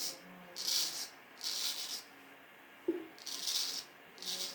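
Vintage straight razor scraping through a lathered, roughly ten-day beard in a series of short strokes with the grain, each a brief raspy scrape, about five in all. A small click sounds a little before the last two strokes.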